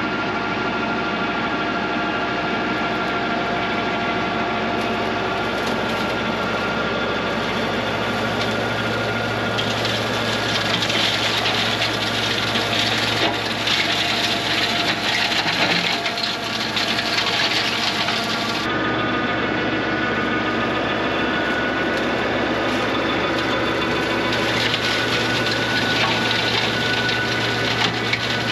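TYM 574 diesel tractor running under load, driving a flail mower whose spinning rotor shreds brush and dry grass. The engine hum stays steady under a hissing, chewing noise from the flails that grows louder about ten seconds in and again near the end.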